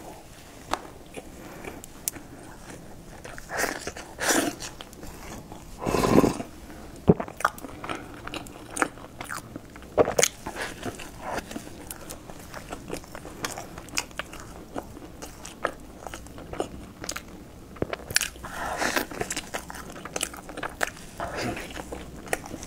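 A person biting and chewing a crusty layered pastry, close to the microphone: a run of small crunches and clicks, with louder, longer bites about six seconds in, around ten seconds, and again near nineteen seconds.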